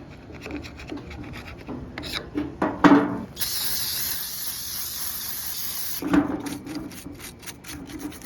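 A Rochester Quadrajet carburetor being scrubbed clean with quick back-and-forth rubbing strokes. About three seconds in, an aerosol can of carb cleaner sprays in one steady hiss for about two and a half seconds. Then the scrubbing starts again.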